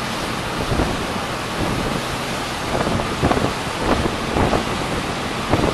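Steady rush of a fast boat's wake churning behind the stern, with wind buffeting the microphone in repeated gusts.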